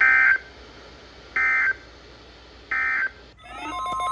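NOAA Weather Radio SAME data signal: three short, harsh digital screeches about a second and a half apart, the end-of-message code closing the broadcast warning. Near the end a buzzy multi-tone signal begins, and the steady 1050 Hz weather alert tone comes in over it, announcing the next warning.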